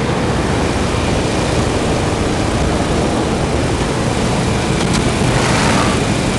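Steady loud roar of a propeller aircraft's engine and airflow heard from inside the cabin, swelling briefly about five and a half seconds in.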